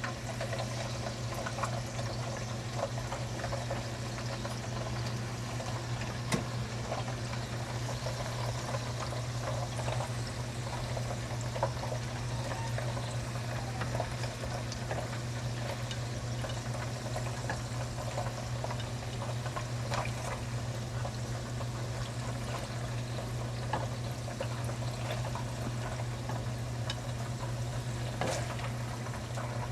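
Tofu slices sizzling as they deep-fry in hot oil in a pan, a dense steady crackle of tiny pops, over a steady low hum.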